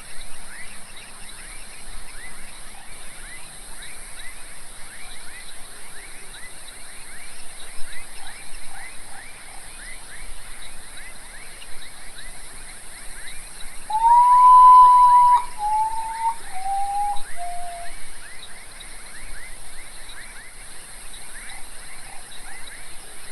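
Common potoo (urutau) singing one mournful phrase about two thirds of the way in: a long whistled note followed by three shorter ones, each lower than the last. Behind it runs a steady night chorus of rapid repeated chirps and a high continuous hiss.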